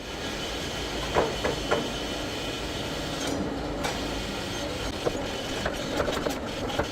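Steady workshop machine noise with scattered sharp knocks, a few of them louder, about a second in and again near the end.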